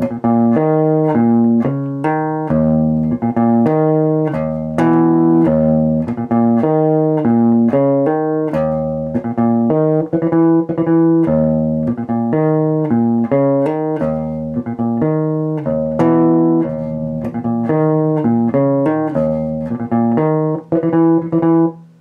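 Electric bass guitar, a Warwick Rockbass Infinity played through an Ampeg cabinet and SWR Workingman's 4004 head with no effects, playing a riff at a slowed tempo. Single notes are plucked hard, with quick triplet figures between the longer notes.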